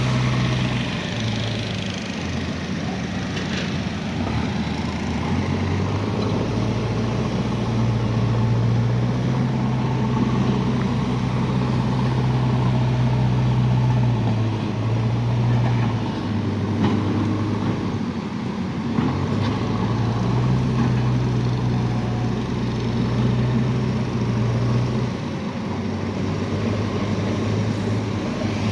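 Road vehicle's engine running steadily, its low hum shifting up and down in pitch several times as the speed changes, over continuous road noise.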